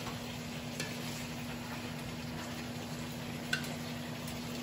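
A metal spoon clinking against a wok and a plate as stir-fried tofu is dished out: a short clink about a second in and a louder one later, over a steady low hum.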